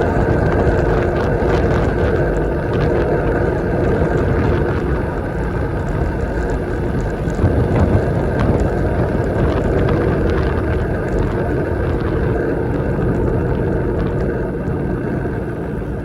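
Rush of wind and road noise on the microphone of a bicycle descending a road hill at speed, steady and loud, with a brief swell about halfway through.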